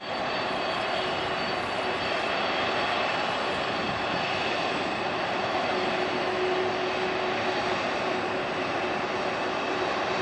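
Jet engines of a Boeing 747 freighter running as it rolls slowly along the ground: a steady, even rushing noise with a faint steady whine over it.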